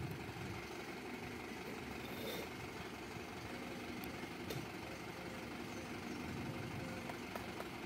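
Steady low engine rumble of road vehicles idling, with a few faint clicks.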